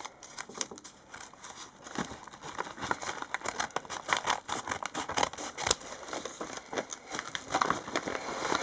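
A parcel of trading cards being handled and opened: irregular crinkling and rustling of the paper and plastic packaging, with many small clicks.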